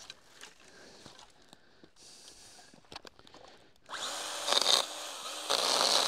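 Stihl GTA 26 cordless mini chainsaw starting about four seconds in, its electric motor whining as the chain cuts into a thin elm branch, with louder stretches as it bites. Before that there are only a few faint clicks.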